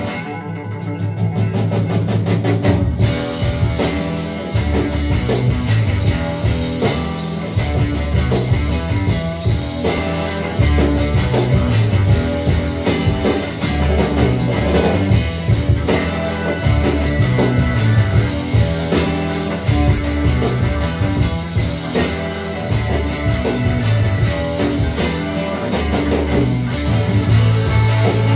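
Instrumental rock music with guitar and drums, playing steadily without vocals.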